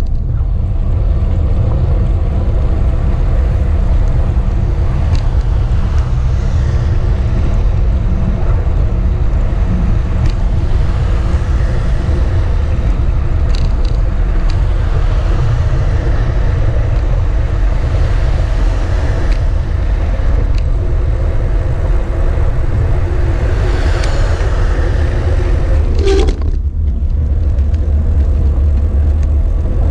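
Steady wind rumble buffeting a moving camera's microphone, with road noise underneath. Near the end there is one short knock, after which the rumble briefly drops.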